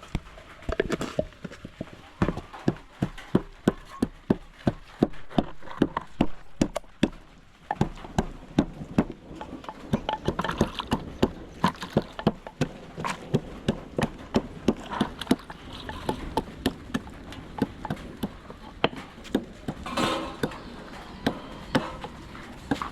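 A steady series of sharp knocks, about two a second, with a short pause about eight seconds in before they go on less evenly.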